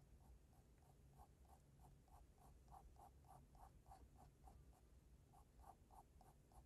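Faint scratching of a graphite pencil on drawing paper in quick, short strokes, about three or four a second, with a brief pause about two-thirds of the way through.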